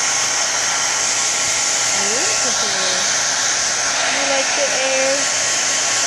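Handheld hair dryer running steadily on a puppy's coat: a continuous rush of air with a constant motor whine. A couple of short pitched vocal sounds come through over it, about two seconds in and again about four seconds in.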